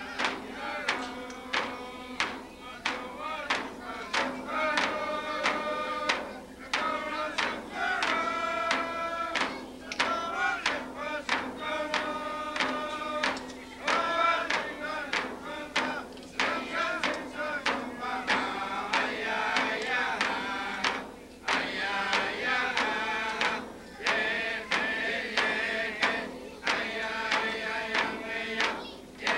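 Yup'ik dance song: a group of voices, men's prominent, chanting over a steady beat of frame drums.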